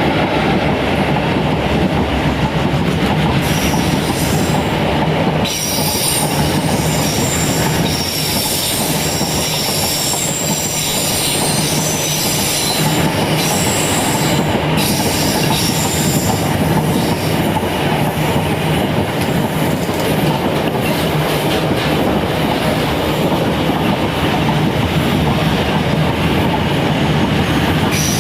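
A freight train rolling past at close range, with a steady rumble of wheels on rail and high-pitched wheel squeal through about the first half.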